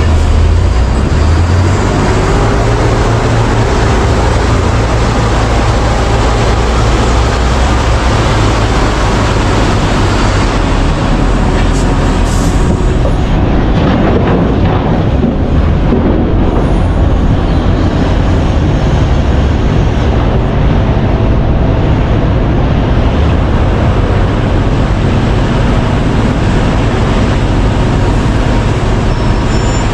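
Heavy diesel mining machinery running steadily: a continuous deep engine rumble under a dense wash of mechanical noise.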